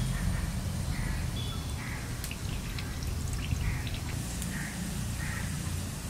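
Fresh coconut milk dripping and trickling into a clay bowl as grated coconut is squeezed by hand, a soft blip every second or so, over a steady low rumble.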